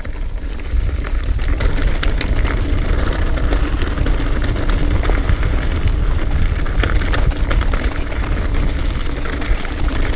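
Trek Remedy 9.7 mountain bike riding down a rough, gravelly trail: the tyres crunch over loose stones and the bike rattles and clatters with many small knocks, over a constant low rumble.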